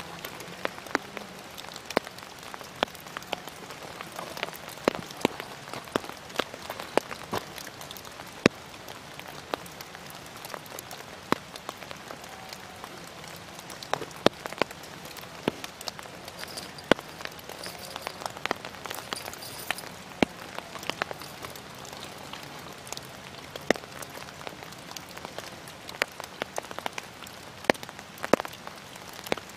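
Steady rain, with many irregular sharp ticks of single drops striking an umbrella close to the microphone over a light hiss.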